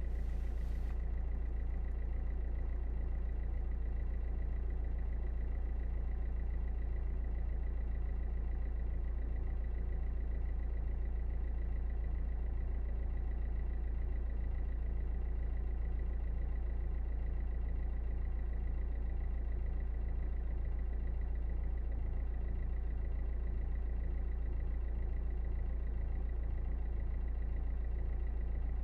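Car engine running steadily, heard from inside the cabin: an even low drone with no revving or change in pitch.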